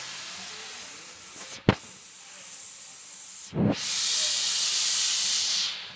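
Steam locomotive releasing steam as the train gets under way: a steady hiss, a single sharp clank about a second and a half in, then a louder rush of steam lasting about two seconds that dies away near the end.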